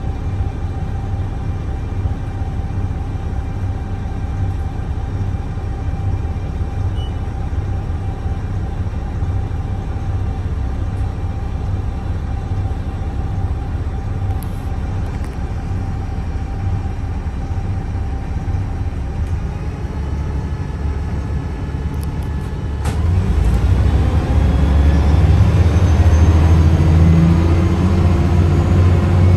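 Mercedes-Benz O405NH bus running with a steady low rumble and a steady whine from its Voith automatic transmission. Near the end, after a click, it gets louder and the whine climbs slowly in pitch as the bus accelerates.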